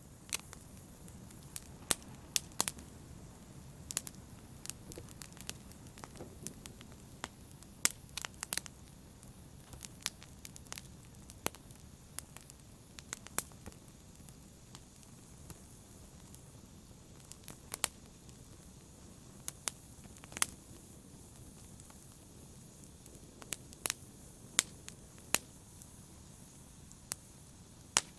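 Wood fire burning in a fireplace: a steady low rumble of flames with sharp, irregular crackles and pops, up to several a second.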